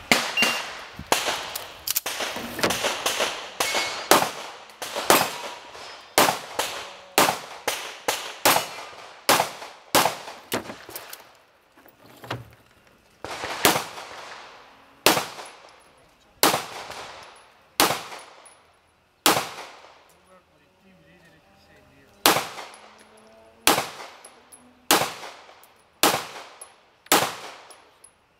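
Handgun shots during a practical pistol stage. Rapid strings of shots fill the first twelve seconds, then single shots come about every second and a half, with one pause of a few seconds in the middle.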